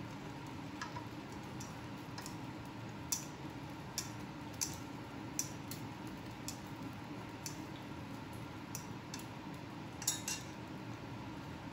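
Wooden spatula knocking and scraping against a stainless steel wok while bok choy stir-fries, giving irregular sharp clacks about once a second over a steady sizzling hiss. The loudest clack comes about ten seconds in.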